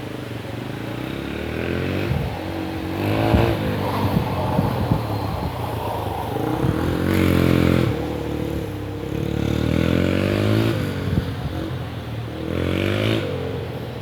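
Dirt bike engine revving up and falling back about four times as it is ridden through mud, with a few sharp knocks about three seconds in.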